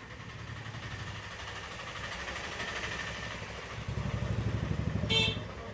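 A motor vehicle engine running close by, its low, evenly pulsing rumble growing louder about four seconds in, with street traffic hiss. A short, high-pitched beep cuts in near the end.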